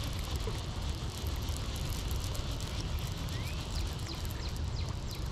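Round baitcasting reel (Abu Garcia Ambassadeur 6500 C3) being wound in by hand after a missed bite, a soft whir with fine clicking, over a steady low wind rumble on the microphone. Birds chirp now and then with short, high, falling notes.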